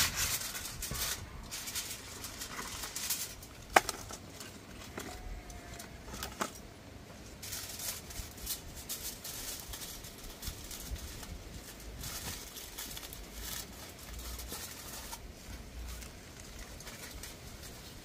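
Aluminium foil crinkling and rustling on and off as a sheet is wrapped around a branch, with one sharp click about four seconds in. A low wind rumble underneath.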